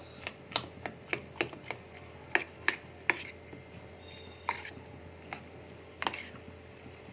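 A run of sharp knocks and clicks from kitchen utensil work, irregular and about three a second over the first three seconds, then sparser.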